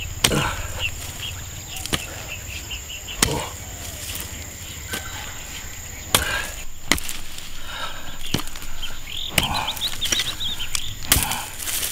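Hand hoe chopping into dry soil, about eight strikes at an uneven pace of roughly one a second, breaking up and turning over the ground.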